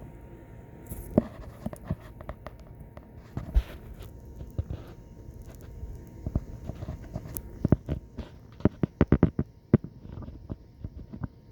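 Small clicks and taps of hands working a plastic automotive wiring-harness connector while depinning its terminals, over low handling rumble, with a quick run of clicks about nine seconds in.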